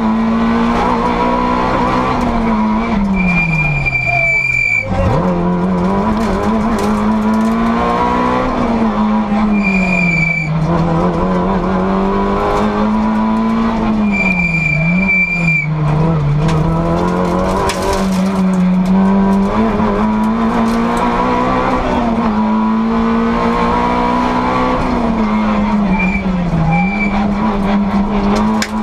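Rally car engine heard from inside the cabin, revving hard and rising and falling in pitch with gear changes and lifts through the stage, dropping low once about five seconds in. Tyres squeal briefly in corners three times: near the start, about ten seconds in and around fifteen seconds in.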